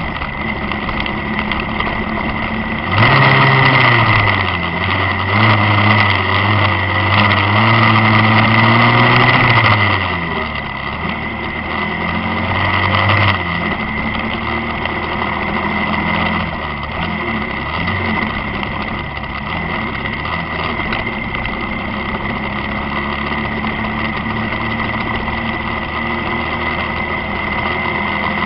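A motor vehicle's engine running on the move, picked up by a cheap action camera's microphone, with a steady high whine over it. About three seconds in, a louder engine comes in, its pitch dipping and rising, and it fades out around ten seconds in.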